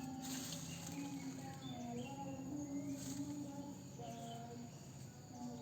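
Goats bleating faintly and overlapping, drawn-out calls that shift pitch, with a few short high chirps.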